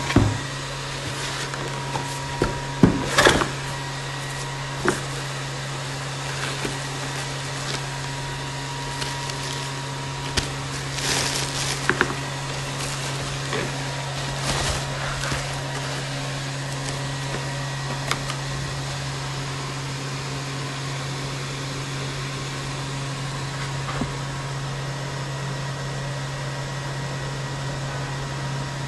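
A steady low machine hum throughout, with scattered rustles, clicks and light knocks of a cardboard box and foam packing being handled as a graphics card is unboxed, most of them in the first half.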